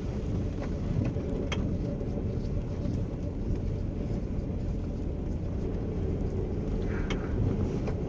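Car driving along a sandy dirt forest track: a steady low rumble of tyres and engine, with a few light knocks in the first couple of seconds.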